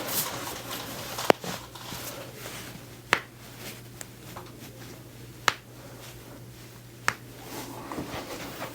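Four sharp single pops, each about two seconds apart: joints cracking under chiropractic manipulation.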